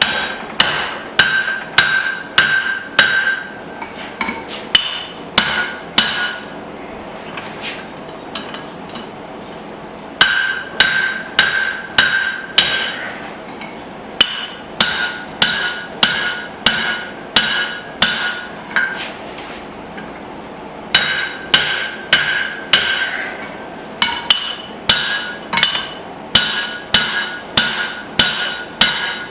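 Hand hammer striking hot spring steel on the anvil, driving a drift through the eye of a hatchet head. The blows come about two a second in runs with two short pauses, and each blow leaves a bright metallic ring.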